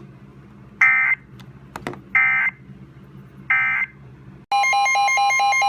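Emergency Alert System end-of-message data tones: three short, loud, buzzy bursts about a second apart, which close the warning just broadcast. At about 4.5 seconds a loud, steady two-pitch tone starts abruptly: the EAS attention signal that opens the next alert.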